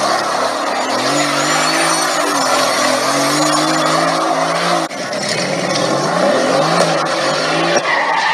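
Mercedes-AMG GT twin-turbo V8 revving hard in a smoky burnout, its rear tyres squealing as they spin. The engine note wavers up and down and breaks off briefly about five seconds in, then picks up again.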